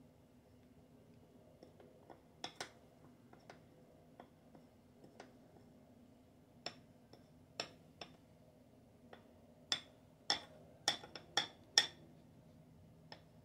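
Metal spoon clinking against a ceramic mixing bowl while stirring pancake batter. Scattered light clinks, with a quicker, louder run of them near the end.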